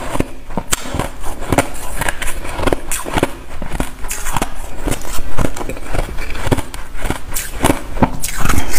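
Close-up crunching of packed white snow-ice being chewed: a quick, uneven run of sharp crunches, about two to three a second, loudest near the end.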